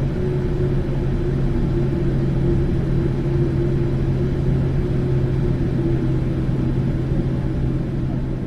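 Boeing airliner's jet engine running steadily after start, a low rumble with two steady humming tones.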